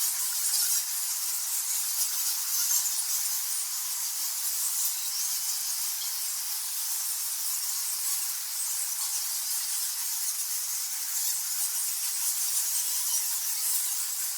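A large colony of nectar bats squeaking and chattering. Many overlapping high-pitched squeaks blend into a dense, continuous chorus.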